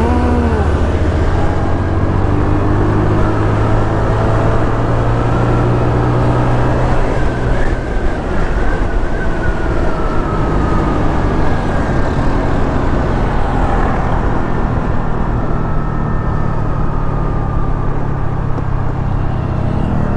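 Motorcycle engine running under way, with wind rushing over the microphone. The engine note shifts about eight seconds in, then holds steady again.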